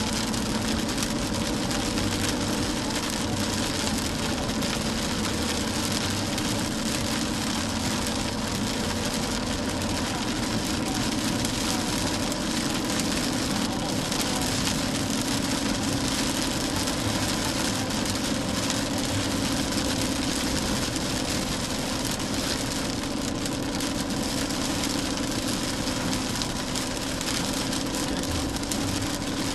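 A car driving in heavy rain on a wet road: a steady wash of rain and tyre noise over a constant engine hum.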